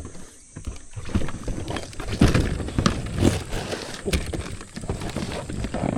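Irregular knocks, scuffs and rustling of a person moving off with gear, with the heaviest knocks about two to three seconds in and again at the very end.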